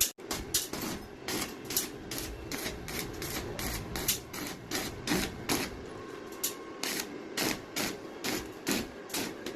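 A rapid, slightly uneven run of sharp clicks or knocks from tool work, about three a second, over a steady low hum.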